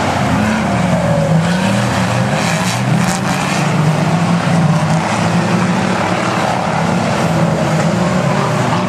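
A pack of stockcars racing, their engines running hard, with the engine notes rising and falling as the cars accelerate and lift off through the corners.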